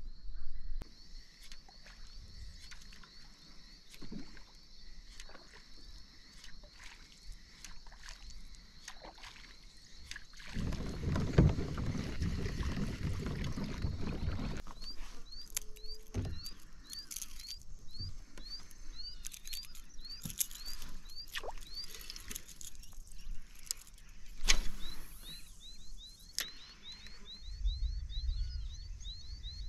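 Rebel Pop-R popper being cast and worked across the water surface from a fishing kayak: scattered short pops and clicks, with a few seconds of louder rushing noise about a third of the way in. A high chirping call repeats two to three times a second through the second half.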